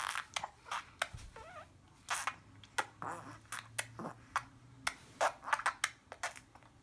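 A person making silly mouth noises: a rapid, irregular string of tongue clicks and lip pops, with a few short hisses and brief squeaky voiced sounds. The noises stop shortly before the end.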